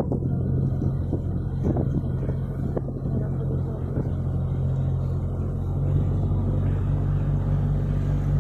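Canal tour boat's engine running steadily under way, a low hum whose note shifts slightly about six seconds in.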